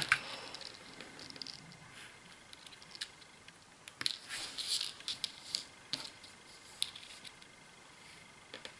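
Small side cutters snipping thin stranded hookup wire into short lengths: a handful of sharp snips and clicks, with light rustling of the wire being handled.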